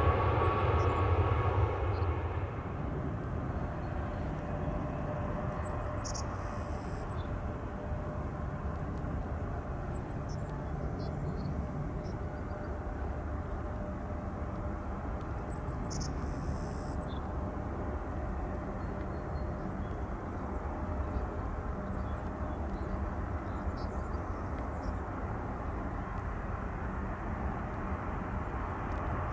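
Airliner jet engines close by with a whine, cut off abruptly about two seconds in. After that comes a steady, quieter low rumble with a faint hum of distant jet engines, and two short high chirps.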